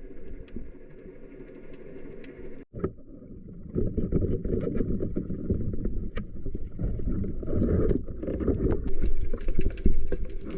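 Water noise picked up by a diver's camera, a low rushing crackle with scattered faint clicks. It drops out briefly under three seconds in and comes back louder.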